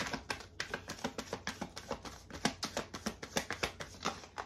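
Tarot cards being shuffled by hand: a quick run of card slaps and clicks, about seven a second, that stops shortly before the end.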